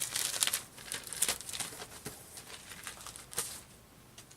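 Packaging being rummaged through: crinkling and rustling with a few sharp clicks, busiest in the first couple of seconds, then one sharp tick and quieter handling.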